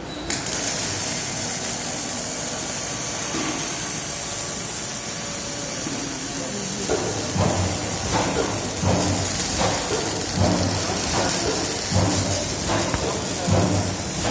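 Automatic exhaust-pipe welding machine's torches arc welding a pipe joint: a steady arc hiss and crackle that starts abruptly just after the start. A low rhythmic pulse, a little over one beat a second, joins about halfway.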